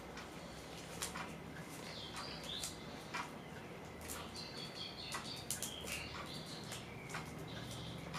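Fingers picking at a magazine's plastic wrap: scattered small clicks and crinkles, with short high squeaky chirps from about two seconds in to about seven seconds in.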